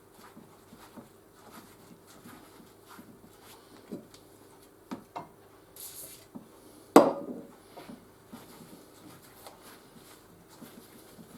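Metal vice parts being worked free by hand: scattered small clicks and knocks, a short hiss of WD-40 aerosol spray about six seconds in, then one sharp metal clank with a brief ring about seven seconds in.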